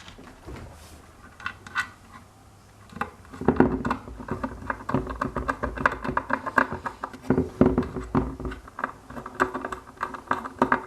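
Rapid clicking and scraping of hard parts being handled and fitted, sparse at first and then busy and continuous from about three seconds in.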